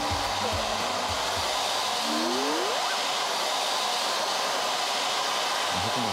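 Hand-held hair dryer blowing steadily while a stylist dries a person's hair.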